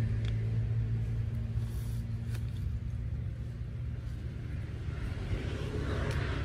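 A distant engine drones low and steady, easing off a little through the middle and swelling slightly again near the end.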